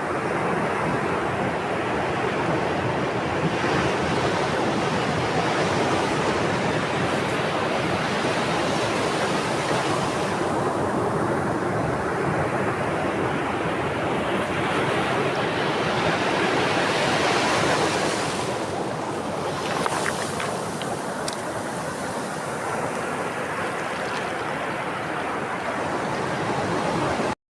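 Sea waves washing onto the shore in a continuous rush, swelling twice and easing back between. The sound cuts off suddenly near the end.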